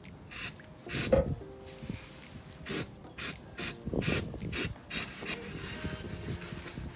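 Aerosol cleaner sprayed in about ten short hissing bursts, cleaning around the engine oil drain so that later leaks will show.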